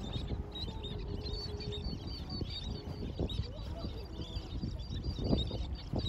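A flock of birds calling with many quick, high chirps, over a low rumble.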